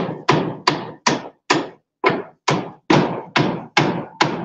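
Hammer blows on corrugated zinc roofing sheets, a steady run of about two and a half strikes a second, each ringing briefly in the metal: nails being driven to fix the roof sheets to the timber frame.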